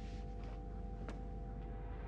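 Eerie background score: a low sustained drone of a few steady held tones over a deep rumble, with one faint click about a second in.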